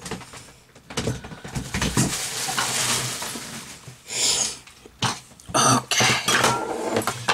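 Rustling, knocks and clatter of small objects being handled and moved about, in irregular bursts.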